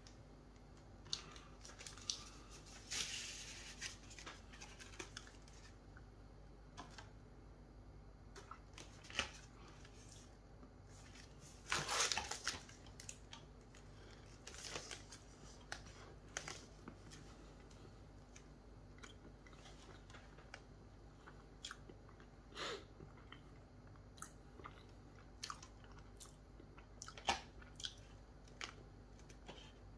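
Faint chewing and mouth sounds of someone eating a chocolate sponge roll with a milk chocolate coating, with scattered small clicks and a few brief louder noises, the loudest about twelve seconds in.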